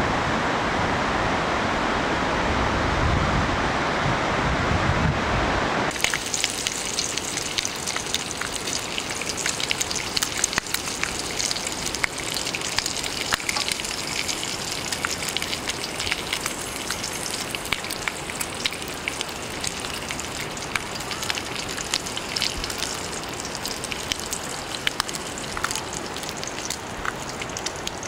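Ocean surf with wind on the microphone for about six seconds, then a sudden cut to steady rain, a dense patter of many small drop ticks.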